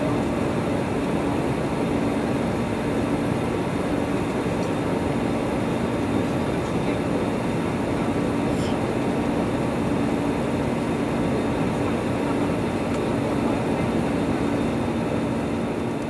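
Steady cabin noise of an Airbus A320-214 in flight, heard from a window seat over the wing: the rush of air and the CFM56 engines' drone, with a steady low hum.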